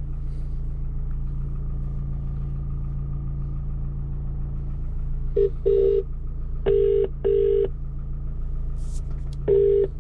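British telephone ringback tone: the double ring of an outgoing call waiting to be answered, sounding three times from about halfway through. Under it runs a steady low hum.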